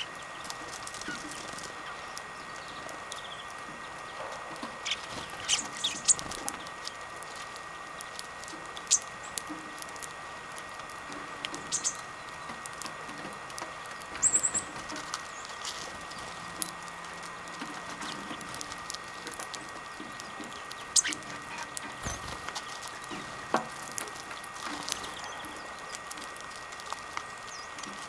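European greenfinches cracking black sunflower seeds at a tray feeder: an irregular scatter of small, sharp clicks and cracks as husks are split, with a few brief high chirps. A faint steady high hum runs underneath.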